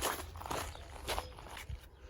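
Footsteps: about four soft steps, roughly one every half second, getting quieter.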